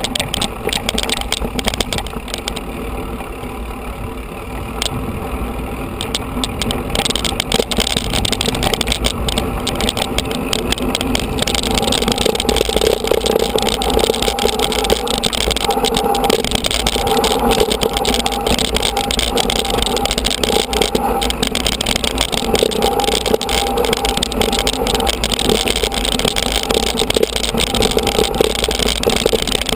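Mountain bike riding over a dirt and gravel track, with steady wind rushing over the microphone and tyres crunching on loose stones. Frequent knocks and rattles come from the bike jolting over bumps in the first ten seconds or so.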